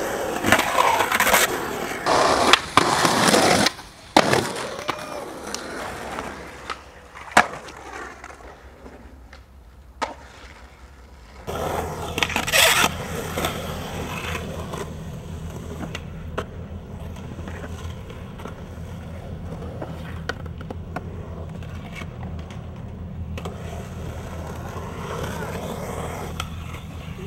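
Skateboard wheels rolling on concrete, with sharp clacks of the board striking the ground, busiest in the first few seconds. About eleven seconds in the sound changes to a steadier, lower rolling with only the odd clack.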